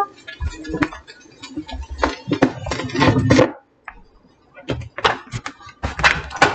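Irregular knocks, rustles and low thumps of handling noise as a phone camera is picked up and carried about, in three clusters with quieter gaps between. A shellac 78 record's music cuts off right at the start.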